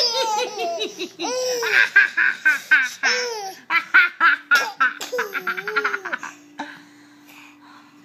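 A toddler laughing hard while being tickled: runs of quick, high laughing bursts, stopping about three-quarters of the way in.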